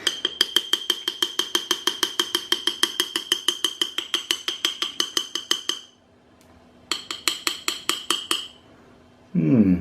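A teaspoon clinking rapidly against the inside of a mug, about seven clinks a second with a ringing tone, while stirring chocolate cake batter smooth. It stops for about a second, then a shorter run of clinks follows.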